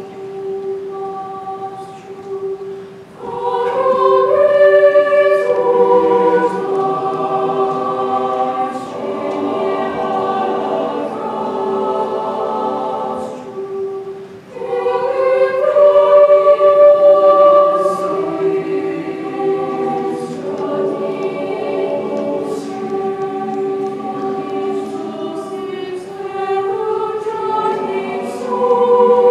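Mixed high school choir singing in parts, the voices moving over a steadily held note. The singing drops back briefly twice and swells louder about 4 seconds in and again about 15 seconds in.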